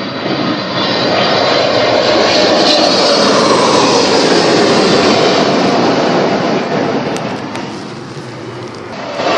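Jet airliner's engines heard as a loud rushing roar as it passes on its landing approach. The noise builds about a second in, holds steady, eases near the end, then swells again.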